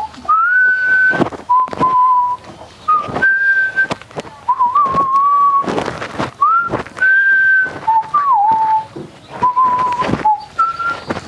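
A whistled tune: a string of clear, single-pitch notes, several held for about a second, some sliding up into the note and one dipping in pitch about eight seconds in, with short clicks between the notes.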